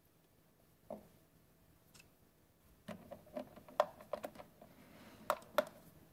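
Metal door-handle fittings clicking and knocking against a door as a rose ring is pressed over the handle spindle hole. One click about a second in, a quick run of clicks from about three seconds, and two sharp clicks near the end.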